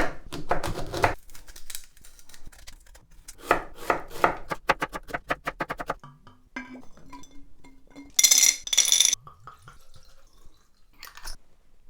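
Kitchen preparation sounds: a knife chopping on a cutting board, with a run of quick, even strokes about four to six seconds in, and clinks of dishes. Two short hissing bursts come a little past the middle.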